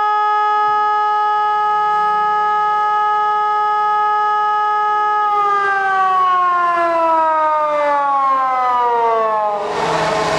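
Wandel & Goltermann electronic siren sounding its fire-alarm signal: one steady, even tone that, about five seconds in, starts sliding down in pitch for some four seconds, like a motor siren running down. Near the end the tone gives way to a loud rushing noise.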